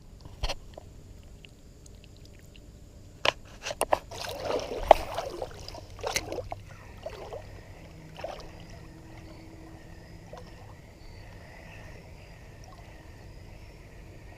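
Water splashing and sloshing at the creek edge, loudest about four to five seconds in, with a few sharp clicks and knocks from handling, then a faint steady background.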